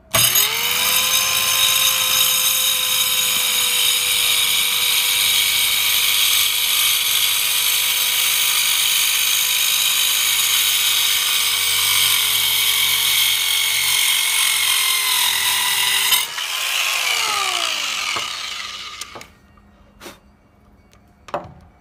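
TACKLIFE 5.8-amp mini circular saw starting up and cutting through a wooden board, its motor whine steady and sagging slightly in pitch under load for about sixteen seconds. Freed from the cut, the motor briefly rises in pitch and then winds down over about two seconds, followed by a few light knocks near the end.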